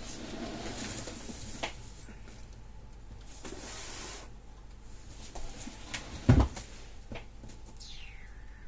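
Rummaging through a drawer: a drawer moving, small items rustling and clicking, and one sharp knock about six seconds in.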